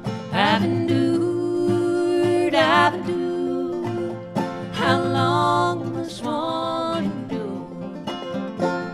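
Live acoustic duo: steel-string acoustic guitar and banjo playing together under sung vocal lines, with long held notes that waver with vibrato.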